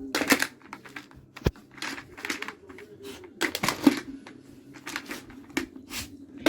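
Irregular clicking, tapping and rattling of a dog toy being nosed and pushed about by a dog hunting for treats in it.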